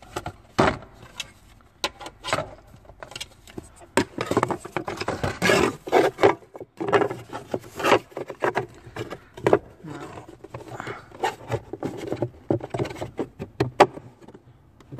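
Repeated clicks, knocks and scraping of plastic as a cabin air filter is worked into its housing behind the glove box.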